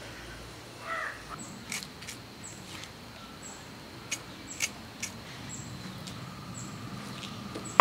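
A crow cawing over outdoor ambience, with scattered sharp clicks and short high chirps repeating about once a second.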